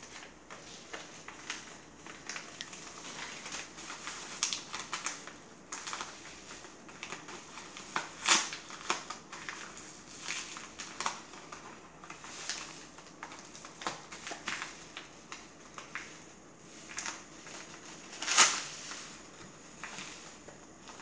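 Paper of an Amazon mailer envelope crinkling and rustling in irregular crackles as it is picked at and pulled open by hand, with two louder crackles about eight and eighteen seconds in.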